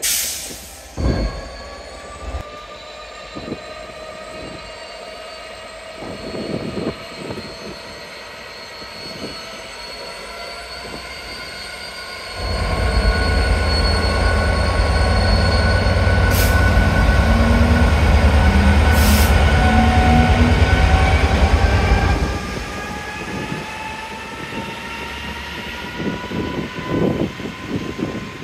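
Class 66 diesel-electric freight locomotive passing close, its two-stroke V12 engine loud for about ten seconds from about twelve seconds in, with high, slowly gliding wheel squeal throughout. Near the end the freight wagons rattle and click over the rail joints. A short loud burst comes right at the start.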